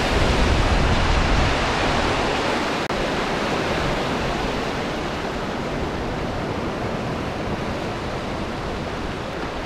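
A big set of sea swell breaking and surging white over the rocks at the water's edge, a steady rushing noise with a heavy rumble, loudest in the first two seconds and then slowly easing.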